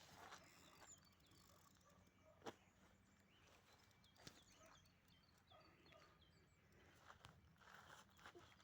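Faint outdoor ambience of small birds chirping, with two sharp clicks about two and a half and four seconds in.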